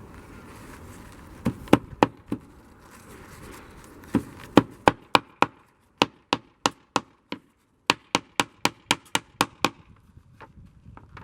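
A hammer tapping a tight-fitting piece into a wooden window frame: four knocks, then after a pause about two dozen quick, even taps at roughly three a second.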